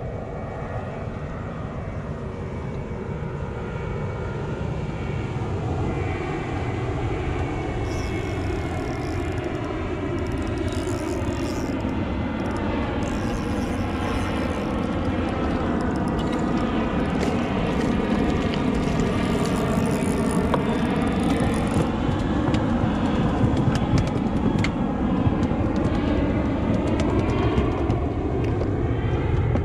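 Jet aircraft passing overhead: a steady rushing noise that slowly grows louder, with a hollow phasing sound that slowly sweeps in pitch. A few faint clicks come in the second half.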